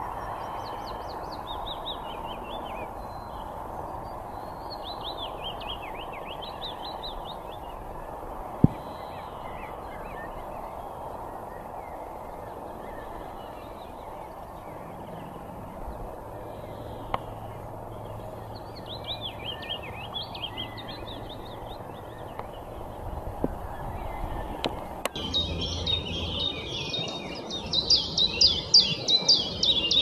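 Leaf warbler singing: scattered short phrases of quick high chirping notes over a steady background hiss, then a louder, denser run of song for the last few seconds. A single sharp click sounds about a third of the way in.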